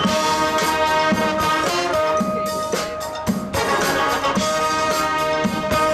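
High school marching band playing loudly: brass holding long sustained chords over a drumline beating out a steady rhythm.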